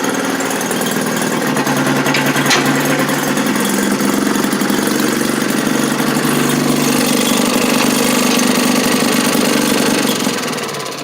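Maytag 72 twin-cylinder two-stroke gas engine on a wringer washing machine running steadily, a fast rapid popping, then fading away near the end. It runs evenly after earlier trouble getting fuel.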